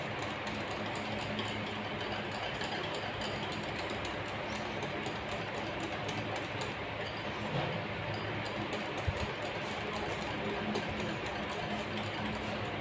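Wire whisk beating cake batter in a glass bowl: a rapid, steady run of light clicks as the wires strike the glass.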